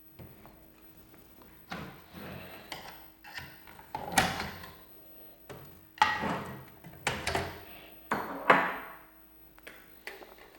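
Small plastic and metal parts of a PlayStation 2 disc drive being handled and taken apart: a series of irregular knocks, clicks and short scrapes, about seven in all.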